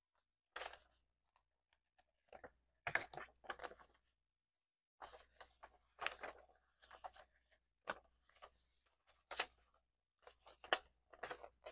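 Paper banknotes rustling and flicking as they are counted by hand, in irregular crisp bursts with short pauses between.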